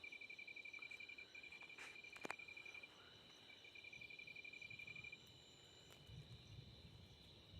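Night insects calling: a cricket's fast, high pulsed trill that breaks off about three seconds in, resumes for a moment and stops just past the middle, over a steady high-pitched drone of other insects. A single sharp click a little over two seconds in.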